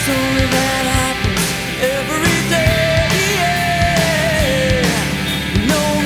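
Instrumental passage of a rock song: a steady drum beat and bass under a sliding lead melody line.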